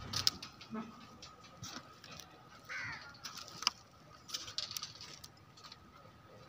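A crow cawing once, about three seconds in, over scattered light clicks and taps.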